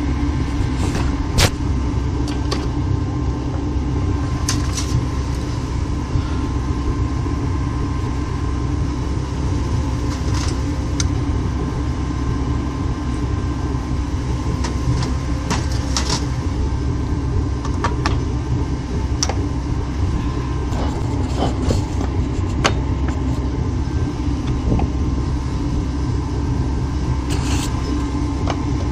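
Melting furnace burner running with a steady, deep rush, with scattered short clicks and knocks over it.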